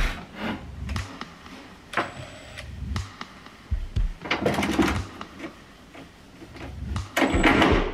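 Cordless drill-driver backing screws out of the painted wooden bunk panels in short runs, the loudest near the end, among knocks and clatter of the wood as the bunk is taken apart.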